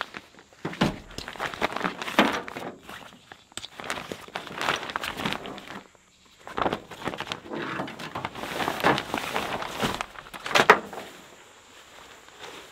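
Nylon camping gear being handled: a duffel bag rummaged, a roll-top dry bag and a tarp pulled out, in irregular rustles and crinkles of fabric. There is a brief quiet gap about six seconds in and one louder rustle about ten seconds in.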